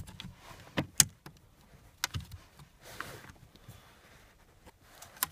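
Flat screwdriver prying at the plastic rear ashtray of a VW Golf Mk4 centre console: scattered clicks and scrapes of metal on plastic as the ashtray's clips are worked loose, the sharpest click about a second in.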